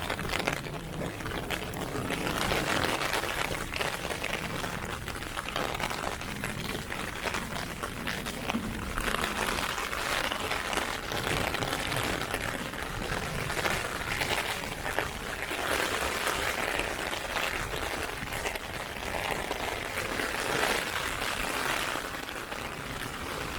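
Heavy rain falling on an umbrella held overhead: a dense, steady hiss of downpour.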